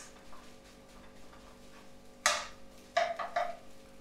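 Metal ladle knocking and scraping against a frying pan while stir-frying fried rice: one sharp clank a little past halfway, then a few quicker knocks near the end.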